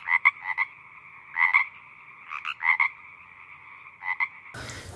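Frog croaking sound, likely from the toy frog or added to the video: a steady two-note drone with short croaks in small clusters near the start, about a second and a half in, around two and a half seconds, and about four seconds in.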